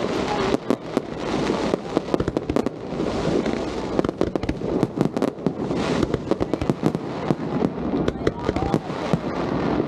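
Aerial fireworks going off in rapid, irregular succession: a dense run of sharp bangs and crackles, several each second.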